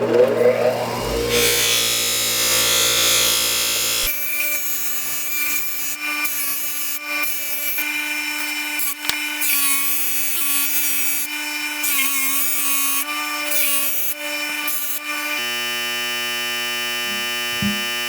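Buffing machine running with steady motor hum, and a knife's handle and edge pressed against the spinning wheel giving irregular rubbing and rasping.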